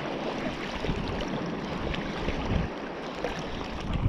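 Steady rushing of wind and sea waves, with uneven low gusts of wind buffeting the microphone.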